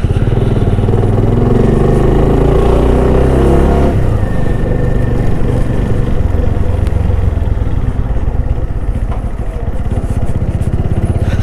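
Motorcycle engine running under way, rising in pitch through the first four seconds, then dropping and running on evenly.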